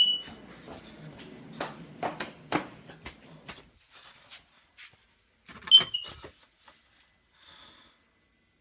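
Combination smoke and carbon monoxide alarm giving two short, high chirps, one at the start and another about six seconds later, with scattered clicks and knocks in between.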